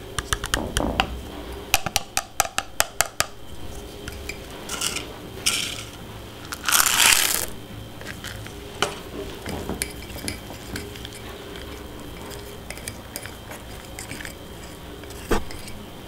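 Small metal whisk clicking and scraping against an enamel mug as cocoa powder and chocolate are stirred into batter: quick runs of clinks, a second-long rustling hiss about seven seconds in, scattered light ticks, and a single clink near the end.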